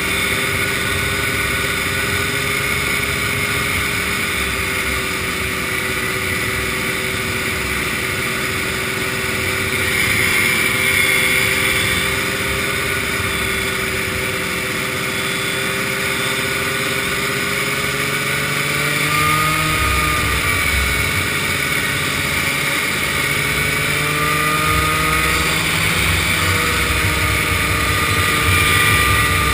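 Vintage snowmobile's two-stroke engine running steadily at cruising speed on pavement, its pitch drifting slowly and rising slightly a couple of times in the second half.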